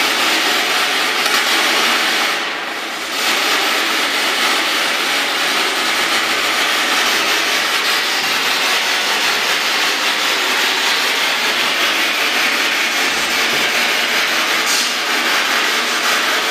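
Spirit box (radio-sweep ghost-hunting device) scanning through radio stations at a 200 millisecond sweep rate, giving a steady hiss of radio static with a brief dip about two and a half seconds in.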